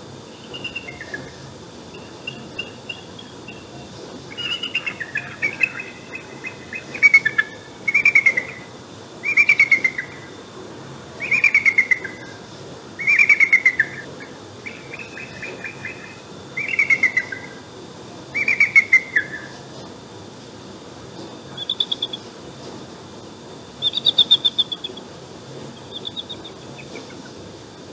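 Bald eagle calling: about ten high, stuttering calls in a row, each a quick run of notes falling in pitch, followed by a few shorter, higher notes.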